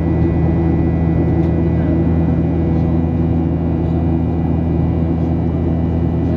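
Steady cabin noise inside a Boeing 737 in flight: an even, low drone of the jet engines and the air rushing past the fuselage.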